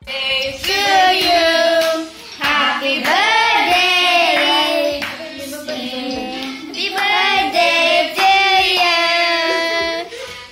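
Voices singing a song, with hand claps.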